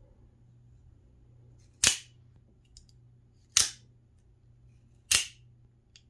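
Three sharp snaps, about a second and a half apart, of an out-the-front automatic knife's spring-driven blade firing out and retracting.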